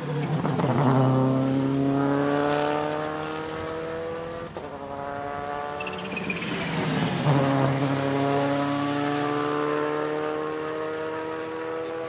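Subaru Impreza S9 WRC rally car's turbocharged engine accelerating hard. The engine pitch climbs steadily through one gear, then drops and climbs again at gear changes about four and a half and seven seconds in, with a sharp crack at the first shift.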